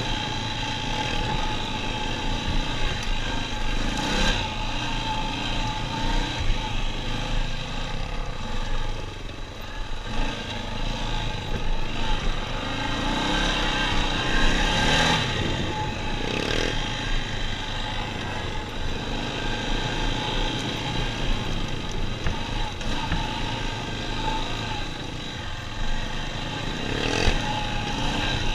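Four-wheeler (ATV) engine running steadily as it rides a rough dirt trail, with about three brief knocks over the bumps.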